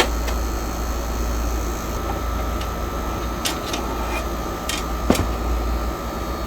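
Steady low mechanical hum with a thin, steady whine. A few sharp clicks of small metal parts or a tool being handled sound over it, the loudest a little past the middle.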